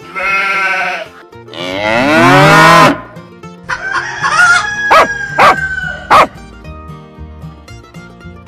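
Farm-animal sound effects, bleats of sheep or goats among them, over light plucked-string background music: a bleat at the start, a longer, louder call falling in pitch about two seconds in, then several shorter calls between about four and six seconds.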